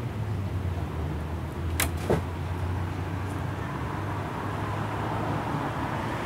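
Street traffic with a car engine running steadily, and two sharp clicks close together about two seconds in.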